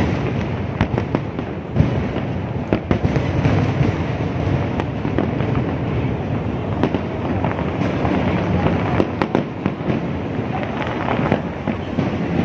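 Aerial fireworks display: a dense, continuous barrage of shell bursts with many sharp bangs at irregular intervals.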